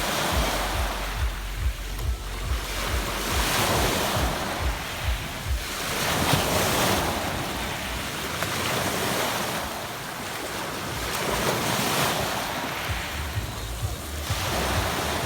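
Sea waves breaking and washing on a pebble beach, the surf swelling and ebbing every few seconds. Wind buffets the microphone with low rumbles, mostly near the start and the end.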